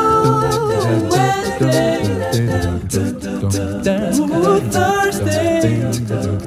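Background music: a song with singing voices over low bass notes and a light beat.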